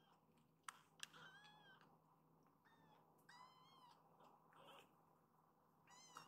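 A very young kitten mewing in thin, high-pitched cries: three longer mews a couple of seconds apart, with a few short squeaks between them. Two sharp clicks come just before the first mew.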